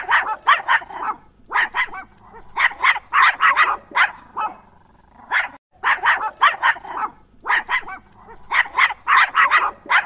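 A dog barking repeatedly, in quick runs of two to four barks with short pauses between.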